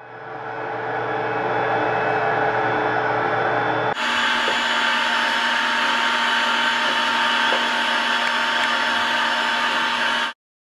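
Steady whir of a vacuum or blower motor, building up over the first second. About four seconds in it switches abruptly to a different, brighter steady whir, then cuts off sharply near the end.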